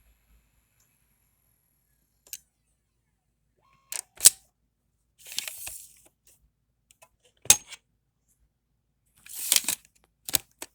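Laptop CD drive tray and disc being handled: a handful of sharp clicks, the loudest about four and seven seconds in, with two brief sliding scrapes between them.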